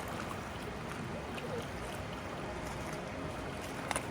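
Steady rush of running water, with a couple of brief clicks near the end.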